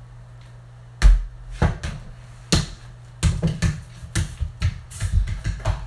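Mini basketball bouncing: a hard hit about a second in and two more single bounces, then quick dribbling on a wooden floor, about four bounces a second, from about three seconds in.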